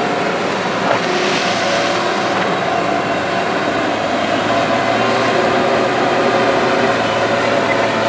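JCB tracked excavator's diesel engine and hydraulics working steadily as the boom lowers and the bucket digs into the hillside earth, with a single sharp click about a second in.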